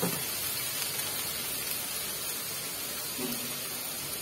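Bitter gourd and onion frying in oil in a kadai, a steady sizzle.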